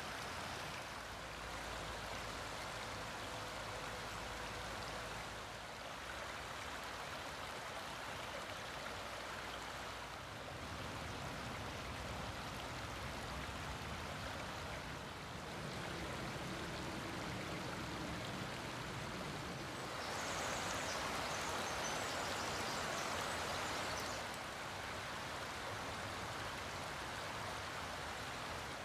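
Shallow creek running over stones and gravel, a steady rushing water sound. Its loudness and tone shift abruptly every few seconds, and it is loudest and most hissy about two-thirds of the way through.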